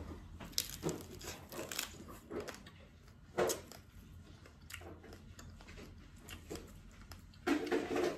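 Close-up mouth sounds of eating steamed crab: biting into a piece of crab body and chewing, with scattered crunches and crackles of shell. The sharpest crunch comes about three and a half seconds in, and a louder bout of chewing comes near the end.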